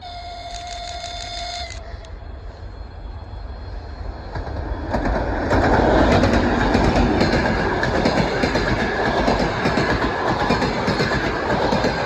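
TEP70 diesel locomotive and its passenger train approaching and rushing past at speed, with a short horn blast at the start, then loud rhythmic clickety-clack of the wheels over the rail joints from about five seconds in.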